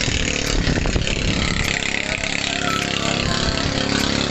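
Boat engine running steadily, with the hiss of wind and water around it.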